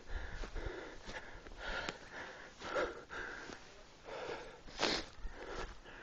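A person panting hard, quick audible breaths about one or two a second, out of breath from climbing a steep slope.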